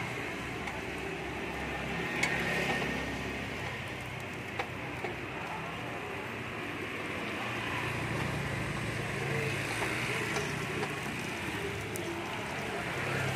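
Steady rumble of road traffic passing close by, with a vehicle growing louder about eight seconds in. A few light clinks come from a metal spoon and skewer tapping the cupped egg-ball pan while the balls are turned.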